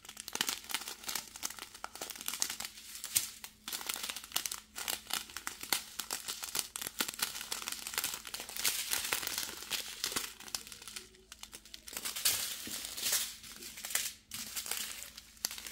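Strip of small plastic bags of diamond-painting drills crinkling and rustling as they are handled, in irregular crackles with a few brief pauses.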